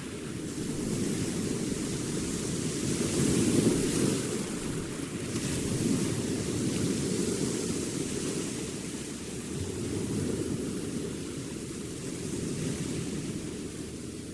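Sea waves breaking on a beach in a steady wash of surf that swells and eases every few seconds.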